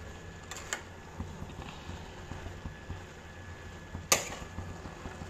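Metal spatula stirring grated carrots in a light kadhai: soft clicks about half a second in and a sharp clack of the spatula against the pan about four seconds in, over a steady low hum.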